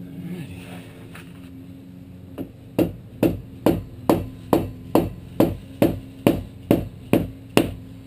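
Mallet striking the aluminum edge of a teardrop trailer's tail-section skin: a light tap a couple of seconds in, then a steady run of about a dozen sharp blows, roughly two a second.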